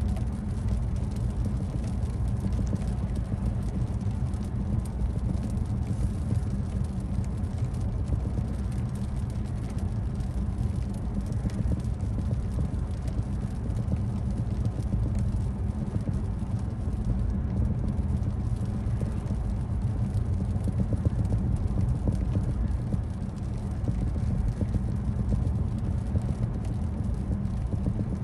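Steady low road and tyre rumble inside a moving car's cabin on a rain-wet road.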